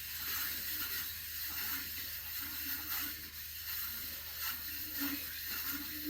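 Lapping tool being worked in the pinion-side bearing race of a Harley-Davidson engine case: repeated short mechanical strokes over a steady hiss, as the race is ground to size so the pinion bearing rollers will fit.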